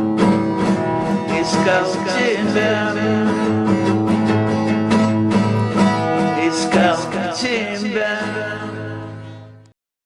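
Instrumental outro of a pop-song backing track with guitar, playing steadily and then fading out about eight seconds in, ending in silence just before the close.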